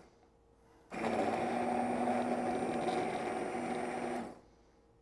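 Hand immersion blender running submerged in a pot of chunky butternut squash soup, puréeing it. It starts about a second in, runs with a steady motor note for about three seconds, and cuts off near the end.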